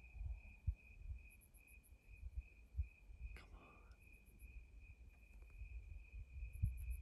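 Crickets trilling in one steady, unbroken high note, over faint irregular low rumbling.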